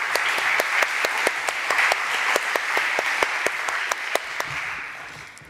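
Audience applauding, a dense patter of clapping that thins out and fades near the end.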